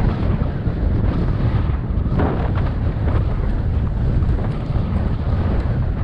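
Strong wind buffeting the microphone of a camera on a moving bicycle: a loud, steady, low rumble, with a brief stronger gust about two seconds in.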